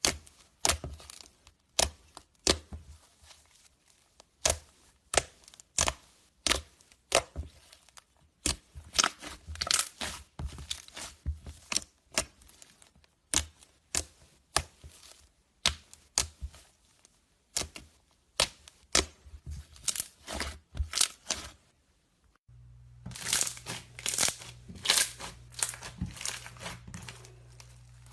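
Slime being squeezed and poked by hand, making sharp pops and clicks about one or two a second. About 22 seconds in, the sound changes to denser crackling over a low steady hum.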